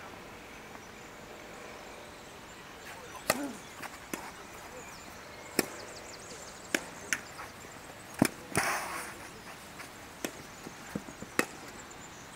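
Tennis balls struck by rackets in a rally: a string of sharp pops about a second or so apart, mixed with softer ball bounces, the loudest hit followed by a brief rushing noise.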